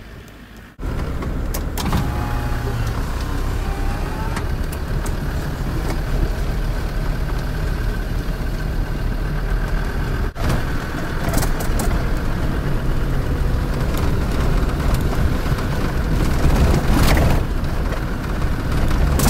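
Land Rover Defender running along a rough sandy track, heard from inside the cabin: a steady low engine and drivetrain rumble with road noise, and a few sharp knocks and rattles from the body over bumps.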